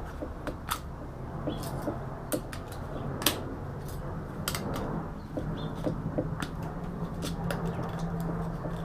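Hand work on a computer's copper-and-aluminium heatsink as it is taken apart for its copper: scattered light clicks and taps, with a low steady hum through the second half.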